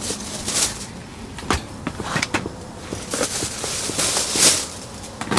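Clear plastic takeout lunch-box containers being handled and set down on a wooden table: short crinkling rustles of plastic wrap and lids, with a few sharp clicks and knocks.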